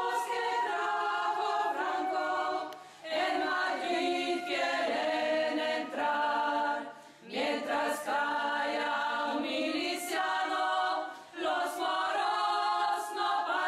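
Women's choir singing together in sustained chords, in phrases broken by short pauses for breath.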